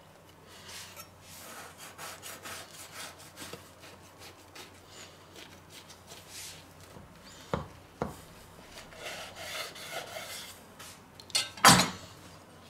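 Large kitchen knife sawing back and forth through a grilled bun and chicken burger, its blade rasping through the crust in quick scraping strokes. Two sharper knocks come about seven and a half seconds in. Near the end comes a louder double knock as the knife is laid down on the wooden cutting board.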